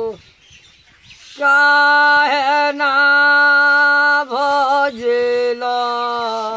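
A man singing a Ram bhajan unaccompanied, holding long drawn-out notes with a small waver in the pitch, after a short pause about a second in.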